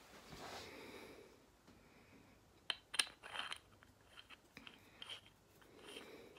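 Brass fitting being threaded by hand onto the threaded stem of a shock arrestor: faint rubbing and handling, with a cluster of sharp metallic clicks about three seconds in and a few lighter ticks after.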